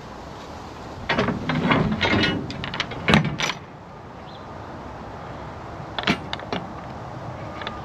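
Mechanical clanking and ratcheting clicks for about two and a half seconds, starting about a second in, then two sharper clicks a few seconds later, over a steady background noise.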